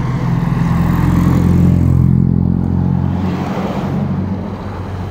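Motor vehicle engine hum with road noise, heard from a moving motor scooter. The hum swells over the first two seconds and eases off as another vehicle comes close alongside.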